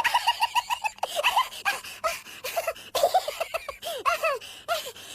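High-pitched laughter in quick repeated "ha-ha" syllables, several short laugh clips in a row, a new one starting about a second in and another about three seconds in.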